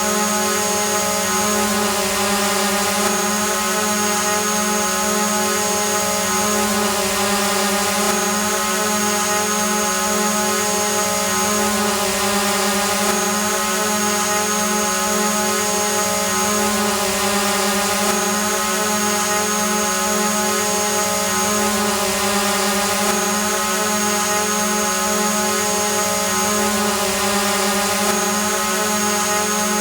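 Multirotor drone hovering, its propellers giving a steady, even hum with a buzzing pitch that never changes. A thin high whistle comes and goes about every five seconds, as in a repeating loop.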